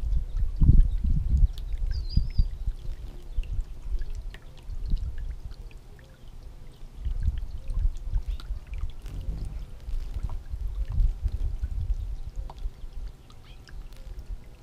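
Water from a garden fountain's bubbler pouring and splashing into its plastic basin, with an uneven, fluctuating low rumble. A brief high chirp about two seconds in.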